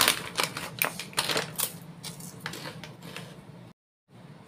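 A thin plastic bag being handled, crinkling and crackling in quick sharp bursts for about three seconds, then quieter, over a steady low hum. The sound cuts out completely for a moment near the end.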